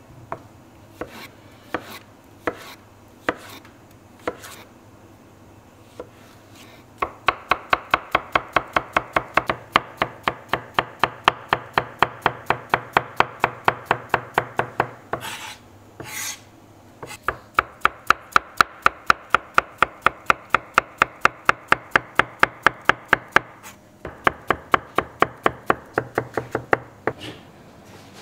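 Chef's knife chopping cucumber into thin strips on a plastic cutting board. A few slow, spaced cuts come first, then long runs of rapid, even chopping, several strokes a second, broken by short pauses.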